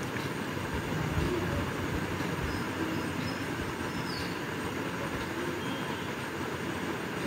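A steady, even rumbling noise with no rhythm, under the faint sound of a spoon stirring yogurt in a glass bowl.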